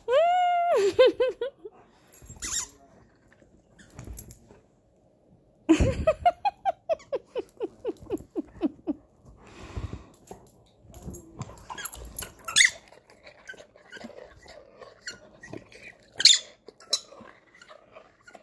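Yellow Labrador retriever whining in high, squeaky runs of quick pulses: a short run at the very start and a longer one about six seconds in, with scattered clicks and rustles between.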